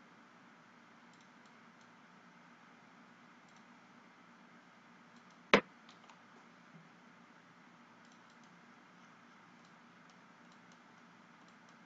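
Computer mouse clicking: a few faint clicks scattered through, and one sharp, much louder click about five and a half seconds in, over a low steady background hiss.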